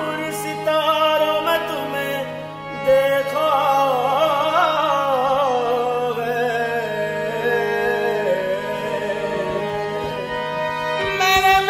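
Qawwali singing: a male voice sings a long, wavering ornamented line over a steady held harmonium drone, and a new, louder sung phrase starts near the end.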